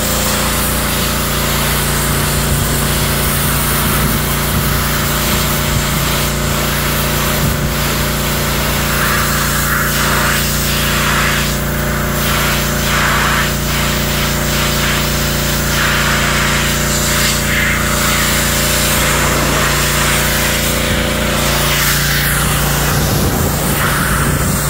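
Pressure washer running steadily, its water jet hissing against the car's painted body panels, the spray noise swelling and fading as the wand moves.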